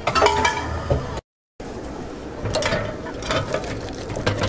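A lollipop vending machine's mechanism clattering and clicking as it dispenses. After a brief silence about a second in, wrapped lollipops rattle in the outlet as a hand reaches in for them.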